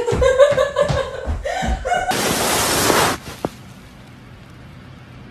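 A person laughing over thumps of feet on a wooden floor, then about a second of loud rushing noise that cuts off, leaving a low background.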